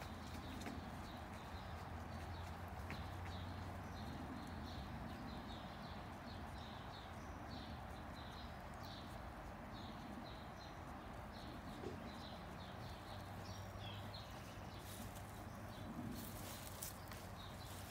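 A bird chirping over and over, short high chirps about two a second, over a steady low background hum.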